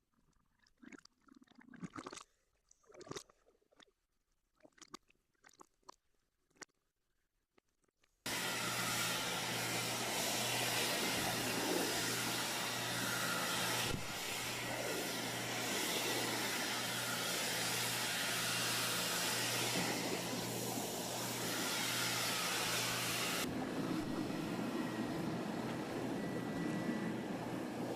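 A few faint clicks and knocks, then about eight seconds in a loud steady rush of water and wind noise starts suddenly, with a low steady engine hum beneath it; it changes to a duller rush with a little more low hum near the end.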